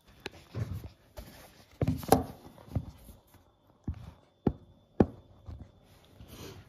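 Handling noise on a wooden tabletop as a phone is moved and set down: about half a dozen short knocks and taps with some rustling between them.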